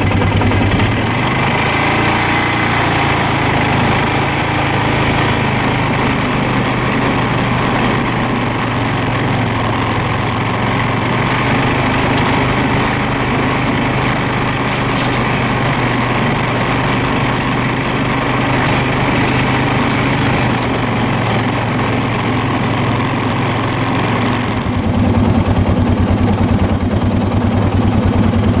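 An engine running steadily and loudly, its note shifting slightly about 25 seconds in.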